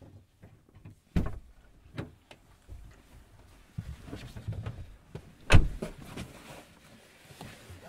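A series of knocks and thumps, the loudest a little over a second in and just past halfway, with shuffling and rustling between them.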